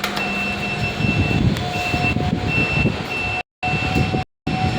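A lift's electronic beeping, one long high beep and then a string of short ones, over a low rumble and a steady hum. The sound cuts out completely twice near the end.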